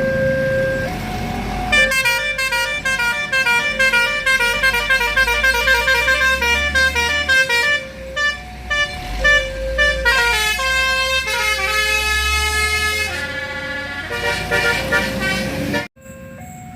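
Indonesian 'telolet' bus horn, a multi-tone musical horn, playing a fast run of changing notes over the low running of the bus engine. It cuts off abruptly near the end.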